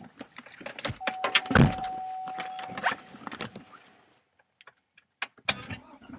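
Someone getting into a car: keys jingling and the car clicking, a steady electronic warning tone from the car for about two seconds, and a heavy thump in the middle.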